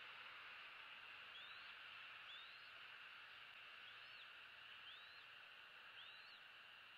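Bald eaglet peeping faintly: five short high chirps about a second apart, each rising quickly and dropping off, over a steady high hiss.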